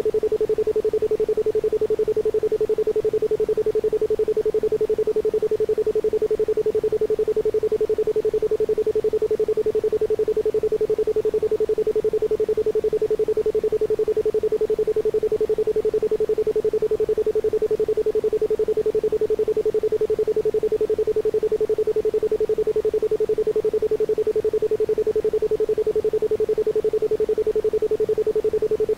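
Isochronic tone: a single pure tone of about 432 Hz pulsing on and off rapidly and evenly, with no other sound behind it.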